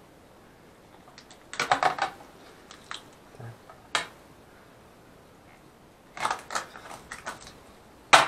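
Mallard drake rib bones cracking and snapping as they are pulled away from the breastbone by hand: short bursts of crisp clicks and crackles, a few separate snaps, and the loudest burst near the end.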